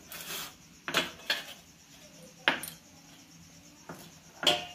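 Stainless steel bowl clanking and scraping while rinsed flattened rice is worked in it by hand: a short scrape, then a handful of sharp, unevenly spaced knocks, the last ringing briefly.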